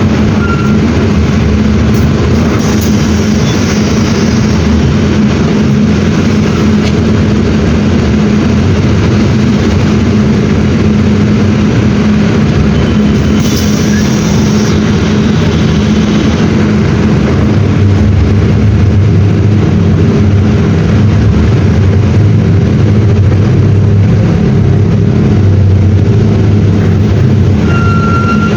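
Mercedes-Benz OM-924 LA four-cylinder diesel engine of an OF-1721 BlueTec 6 bus running steadily, with a deeper hum growing in about two-thirds of the way through. Two short hisses sound briefly, near the start and about halfway.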